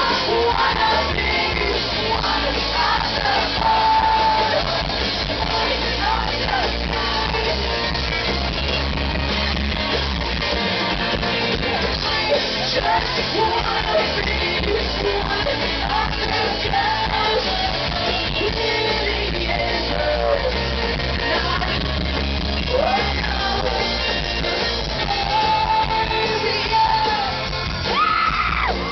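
Live pop-rock band playing, with electric guitar, bass and drums under a woman singing lead, with long held sung notes around 4 s in and again near the end. It is heard from among the audience through the loudspeakers.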